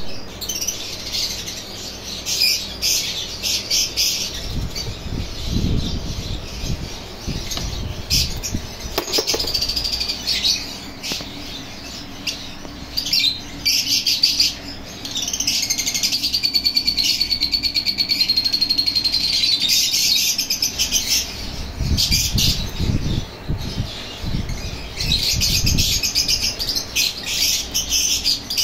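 Young parrot chicks in a nest box calling, a run of rapid, rasping high-pitched calls with one long steady high note about midway. There is low rumbling handling noise twice, as the box and nest straw are disturbed.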